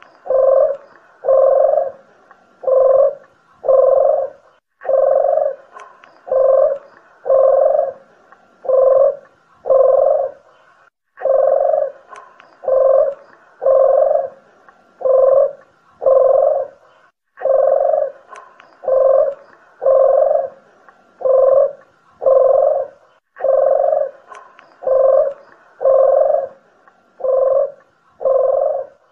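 Streptopelia doves cooing: a lure recording of puter and dederuk jawa, repeating low, pitched coos in runs of several notes, each run starting again about every six seconds.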